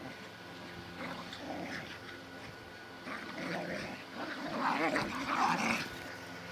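A Staffordshire bull terrier and a Jack Russell terrier growling in play as they tug on a rope toy, louder and more intense from about four seconds in.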